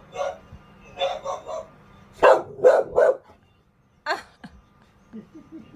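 A dog barking in short clusters of quick barks, the loudest run of three coming a little past the middle.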